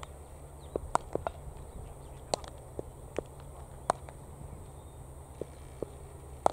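About a dozen sharp clicks and knocks at irregular intervals, over a steady low rumble.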